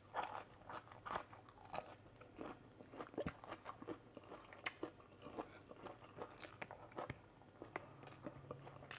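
A person chewing and biting food close to the microphone, with irregular crisp crunches and wet mouth clicks coming a few times a second.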